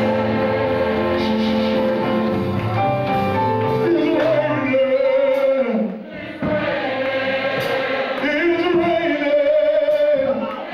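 Live gospel music: steady held chords for the first few seconds, then a man singing long, wavering notes into a handheld microphone from about halfway.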